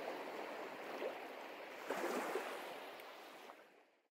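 Sea waves washing, a steady surf wash that fades away near the end.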